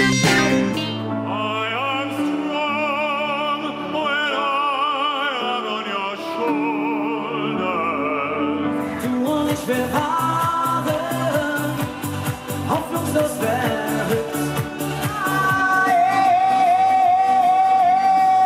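Music with a singing voice holding long notes with vibrato. A steady drum beat comes in about nine seconds in, and one note is held at length near the end.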